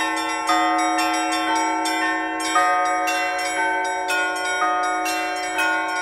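New church bells being rung in a repeating pattern, a stroke about once a second with lighter bells in between, over the steady hum of a deep bell that keeps ringing.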